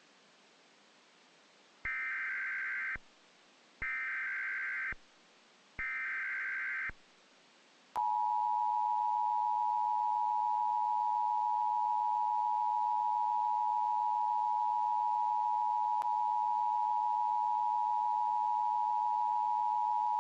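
Emergency Alert System tones: three one-second bursts of the buzzing SAME data header, about a second apart, which encode the alert. After a pause, the steady two-tone EAS attention signal starts about 8 seconds in and holds, announcing the emergency message.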